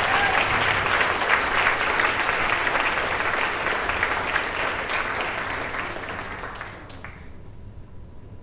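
Church congregation applauding: dense clapping that dies away about seven seconds in.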